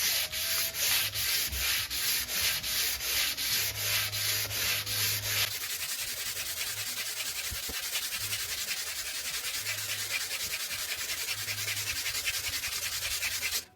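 Diablo hand sander fitted with Sandnet mesh abrasive rubbed back and forth by hand over a chalkboard in steady rhythmic strokes. About five seconds in the strokes become quicker and shorter.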